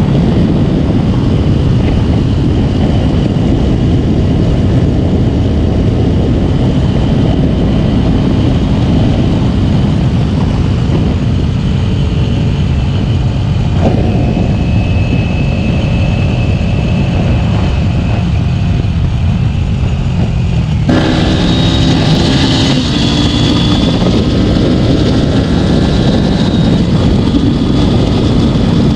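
Kawasaki Ninja 250 motorcycle engine running while riding, under heavy wind rushing over the microphone. About two-thirds of the way through the sound turns brighter and the engine's pitch comes through more clearly.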